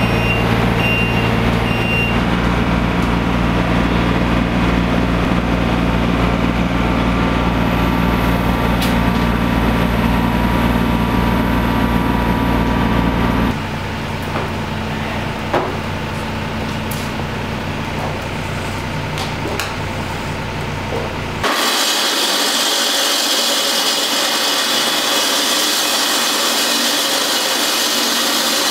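A compact excavator's diesel engine runs steadily, then gives way about halfway through to a quieter engine hum with a few clicks. In the last several seconds a gas-powered walk-behind concrete saw cuts a wet concrete slab with a steady, high grinding hiss.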